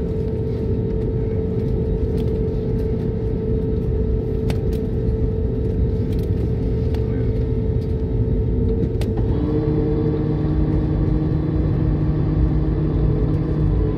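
Cabin noise of an Airbus A321neo rolling out on the runway after landing: a steady rumble with a steady hum. About nine and a half seconds in the hum shifts and a new set of steady tones comes in.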